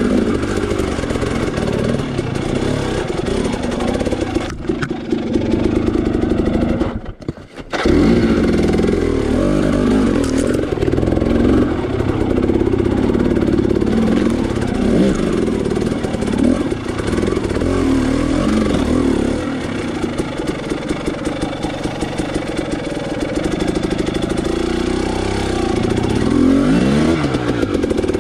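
Dirt bike engine running under load as it climbs over rocks, revving up and down, with clatter from the bike. About seven seconds in the engine sound drops out for under a second, then comes back.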